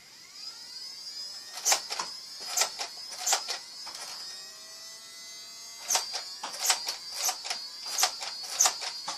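Motorised flywheel Nerf blaster whirring steadily with a high whine, firing darts in two rapid bursts of sharp shots, each shot a loud snap over the motor.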